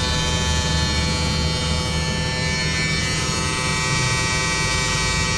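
Steady electrical buzz on a bus: a dense drone of many tones over a low hum. The person recording takes it for some kind of alarm.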